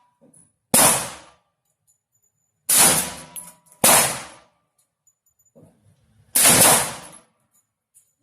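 Double-barrel AR-15 rifle firing four shots, unevenly spaced over about six seconds. Each is a sharp crack with a short ringing tail.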